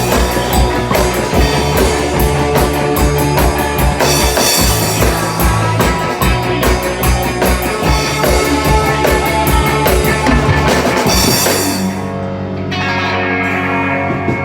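Rock band playing: a drum kit with a steady kick drum under guitar. About eleven seconds in, the drums drop out and the guitar chords ring on.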